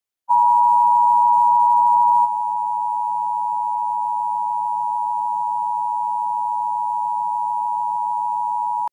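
Emergency-alert attention tone: one steady electronic beep held for about eight and a half seconds, cutting off abruptly, a little quieter from about two seconds in.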